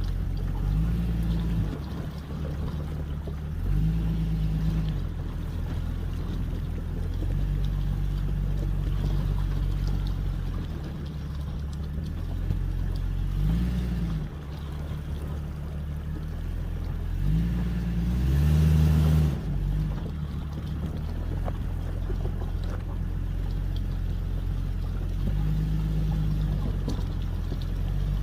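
Jeep engine running at low speed, its pitch rising and falling repeatedly as the throttle changes. Two brief rushing noises come about halfway and about two-thirds through.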